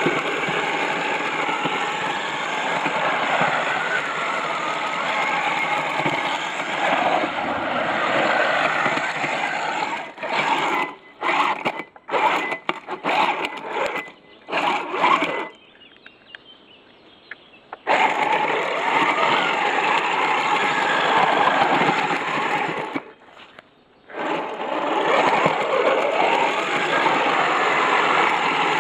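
Homemade RC tracked vehicle with a Turnigy G32 brushless outrunner motor, running steadily with its motor and tracks driving through mud and water. About ten seconds in it moves in short stop-start bursts, goes nearly quiet for a couple of seconds, then runs again, with one more brief cut-out later on.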